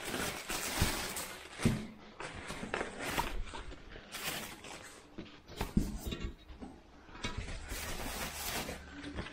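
Plastic wrapping rustling and crinkling against cardboard as a hand pulls packed parts around inside a box, in irregular bursts with a few light knocks.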